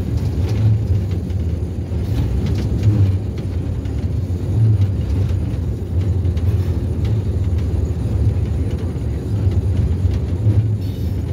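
Low, steady rumble of a passenger train heard from on board, running slowly under a speed restriction over flood-damaged track, with a few faint clicks.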